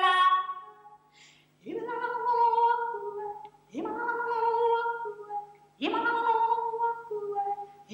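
A woman's unaccompanied voice singing. After a held note dies away and a brief pause, she sings three sustained phrases about two seconds apart, each with a sharp attack and dropping a step in pitch at its end.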